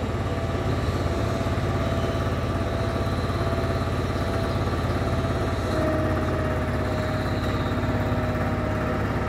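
An engine running steadily, with no change in pace.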